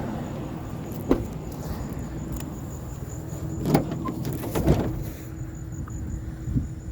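A vehicle engine running steadily, with three sharp knocks: about a second in, and twice a second apart near the middle.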